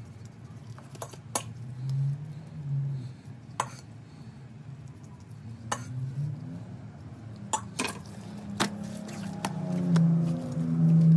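Scattered sharp clicks and knocks of a knife and gloved hands against a plastic cutting board while raw brisket is trimmed. A low hum comes and goes under them and is loudest near the end.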